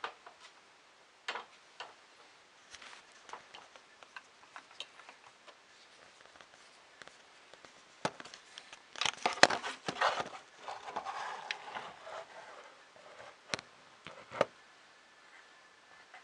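Small clicks and knocks of plastic printer parts, screws and tools being handled during assembly, sparse at first. About eight seconds in comes a dense flurry of louder knocks and rustling that lasts a few seconds, followed by a couple of last clicks.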